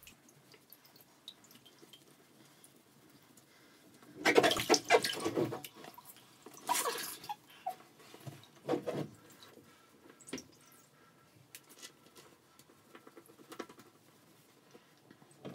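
Wet cat being rubbed and handled in a bath towel: three bursts of rubbing and wet sloshing noise about four, seven and nine seconds in, with faint drips and small clicks between.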